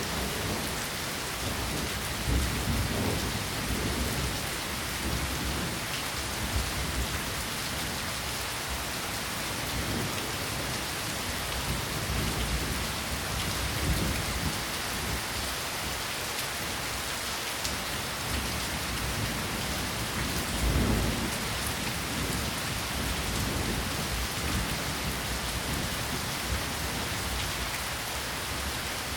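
Steady rain falling, a dense even hiss, with a few brief low rumbles, the strongest about two-thirds of the way through.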